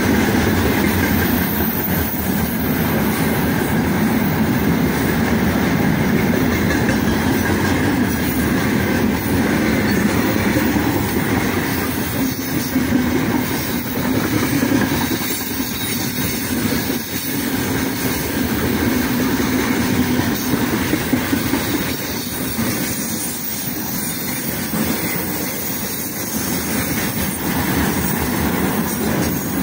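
Freight train wagons rolling past close by: a steady loud rumble of steel wheels on the rails, with rhythmic clickety-clack from the wheelsets.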